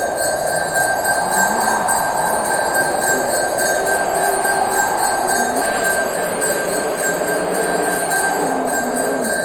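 Pooja hand bell (ghanti) rung continuously: a steady, unbroken ringing with one clear high tone held throughout.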